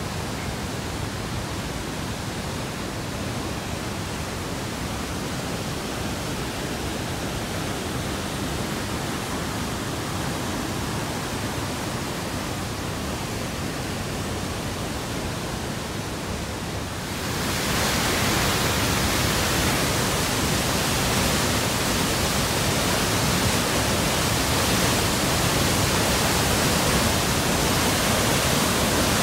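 Mistaya River rushing through the narrow rock gorge of Mistaya Canyon: a steady whitewater rush that grows louder and brighter about seventeen seconds in.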